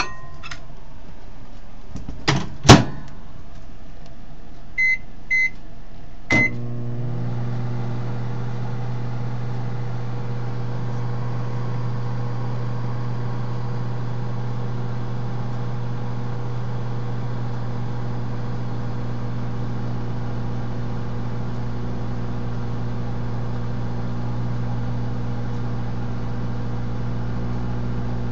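Microwave oven being started: two clicks, two short keypad beeps, another click, then the oven running with a steady low hum.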